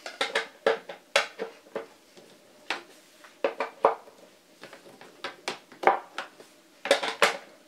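18650 lithium-ion cells being pushed one by one into black plastic cell holder grids: a run of irregular sharp clicks and taps as the metal cans knock against the plastic and against each other.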